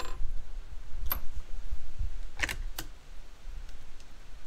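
Marlin 336 .30-30 lever-action rifle being handled at the bench: four sharp metallic clicks from its action, the last two close together about two and a half seconds in. A low steady wind rumble on the microphone underneath.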